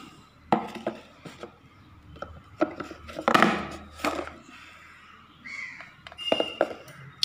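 Hard plastic storage containers with flip-top lids being handled and set down on a stone counter: a series of sharp plastic clacks and knocks, loudest about three and a half seconds in.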